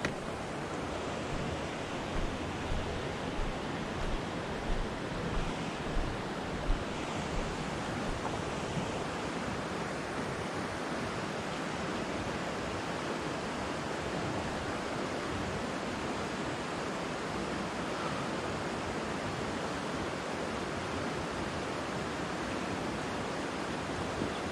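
Steady rushing of a mountain stream, with a few low thumps in the first several seconds.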